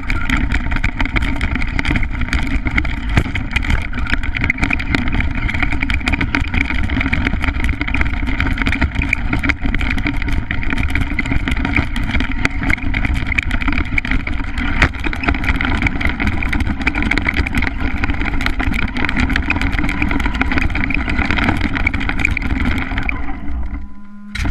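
Small nitro engine of an RC stadium truck running hard at high revs, heard from a camera riding on the truck, with rapid knocks and rattles from the bumpy dirt. Near the end it dips as the truck tips over, then settles to a lower, steady hum.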